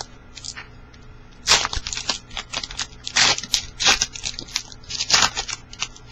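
A trading card pack's wrapper being torn open and crinkled in the hands, with cards handled: a string of sharp, irregular crinkling and tearing bursts.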